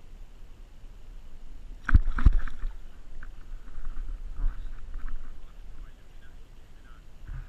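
A hooked barramundi thrashing and splashing at the side of a kayak as it is gripped by the jaw and lifted from the water. There are two sharp splashes or knocks about two seconds in, then smaller splashes, over a steady low rumble.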